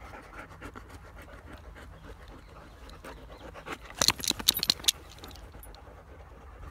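Handling noise from a dog's fur rubbing against the phone, with a burst of sharp crackling clicks about four seconds in, over a steady low rumble.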